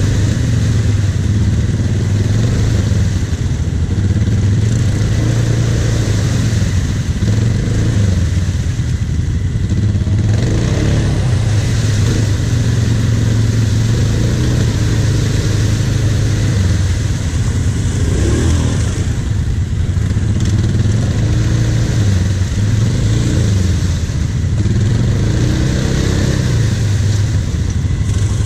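ATV engine running steadily near idle, with a brief rise in revs about two-thirds of the way through.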